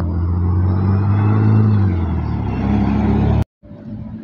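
Articulated Iveco Urbanway city bus driving past close by, its engine running loud, the pitch rising and then dropping back. About three and a half seconds in the sound cuts off abruptly and gives way to the quieter running engine of another bus.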